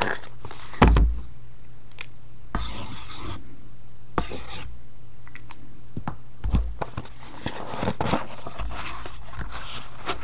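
Hands opening and handling a cardboard trading-card box close to the microphone: scraping and rustling of cardboard and packaging, with several dull thumps as the box is knocked against the table.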